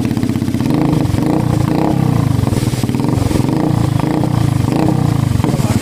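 Suzuki Gixxer SF 150's single-cylinder engine running at a steady idle through a custom exhaust with its dB killer removed: an open, unbaffled exhaust note of fast, even pulses.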